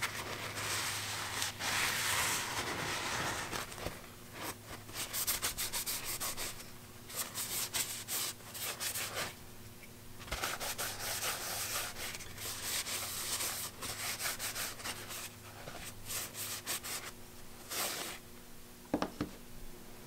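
Blue shop towel rubbing a wax-and-oil wood conditioner into small walnut blocks: cloth scrubbing on wood in bursts of quick strokes with short pauses between.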